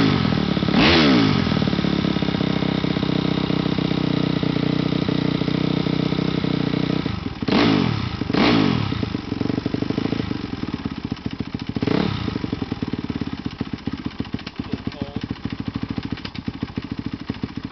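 2005 Honda CRF250R's single-cylinder four-stroke engine running through an FMF titanium 4.1 exhaust, blipped up and down twice right at the start, twice more about halfway, once again a few seconds later, then left idling. It is a stock, high-hour engine due for a rebuild.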